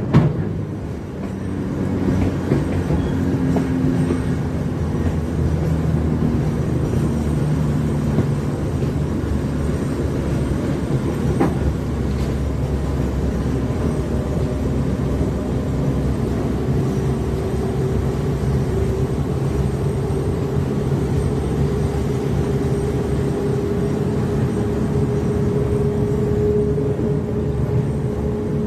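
TGM6 diesel-hydraulic locomotive hauling a train, heard from aboard while moving: a steady engine drone over wheel-on-rail running noise. Over the second half one engine tone rises slowly in pitch.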